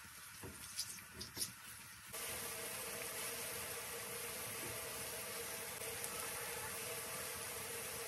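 Chopped onions sizzling in oil in a non-stick frying pan, with a few clicks and scrapes of a silicone spatula stirring them in the first two seconds. About two seconds in, the sound steps up suddenly to a louder steady hiss with a steady hum under it.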